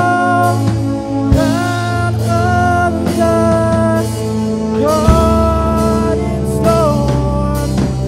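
Live rock band playing: drum kit, bass, electric guitar and keyboard under a lead vocal of long held notes that slide into pitch. Hard drum accents land about a second and five seconds in.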